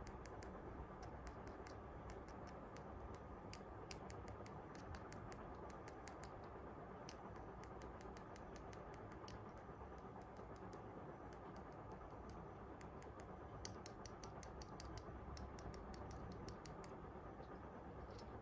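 Faint, irregular small clicks and ticks, coming in clusters, over a steady low background hum.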